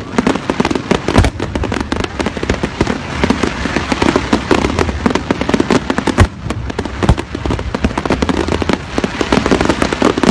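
Fireworks going off in rapid, continuous volleys of bangs and crackles, with several sharper booms standing out above the rest.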